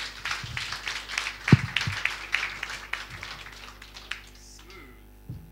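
Audience applause, fading out over about four seconds, with a single thump about a second and a half in.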